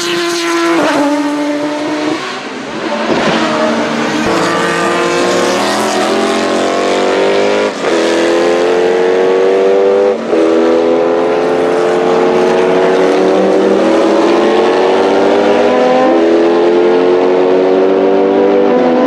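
A car engine accelerating hard through the gears. Its pitch climbs steadily and then falls suddenly at each upshift, about six shifts, the later gears pulling for longer.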